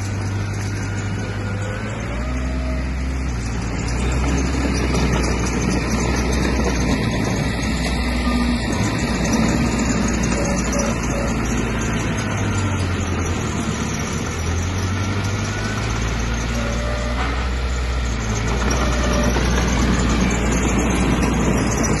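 Diesel engine of heavy earthmoving machinery running throughout, its low note stepping up and down several times as the load changes.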